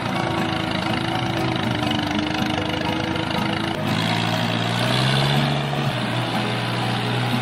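A motor running steadily. About four seconds in, the sound shifts to a deeper drone that rises a little in pitch.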